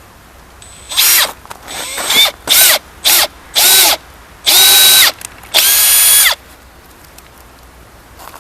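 Electric drill boring a hole through the centre of a mirror, run in about seven short bursts. Each burst spins up in pitch and winds down as the trigger is let go, and the last two are the longest.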